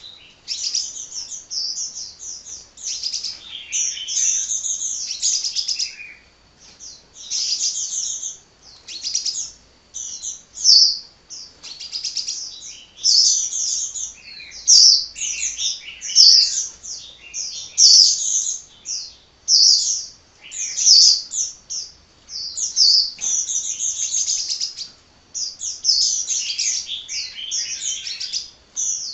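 Sunbird (Indonesian 'kolibri') singing nonstop: rapid, high twittering phrases of a second or two, broken by short pauses.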